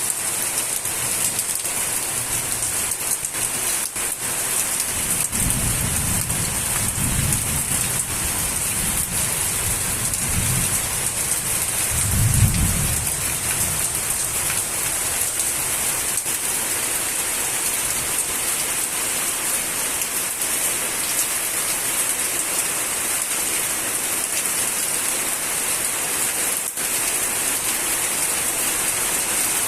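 Steady, heavy rainfall hissing throughout. Distant thunder rumbles low for several seconds about five seconds in, and again more loudly about twelve seconds in.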